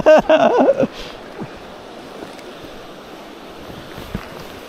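River water running over a shallow rocky riffle: a steady rushing hiss.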